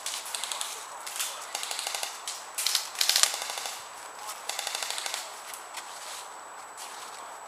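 Airsoft guns firing on full auto: about four short bursts of rapid, evenly spaced cracks in the first five seconds, the loudest about three seconds in, then quieter.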